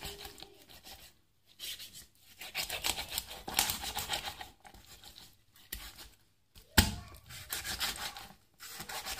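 Kitchen knife sawing through a raw whole chicken on a plastic cutting board: repeated rasping, tearing strokes through skin and flesh in several runs with short pauses. There is one sharp knock about seven seconds in.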